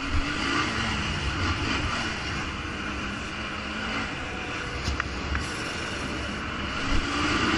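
Quad bike (ATV) engine running under throttle, its pitch rising and falling, over a steady rushing noise.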